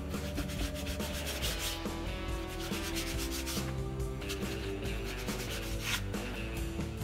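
Repeated scraping and rubbing of a kitchen knife sawing through raw skirt steak on a cutting board, over background music with held notes.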